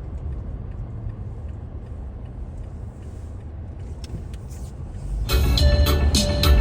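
A low, steady rumble with no clear tones, like an engine heard from inside or wind on a microphone. Music with a beat starts again about five seconds in.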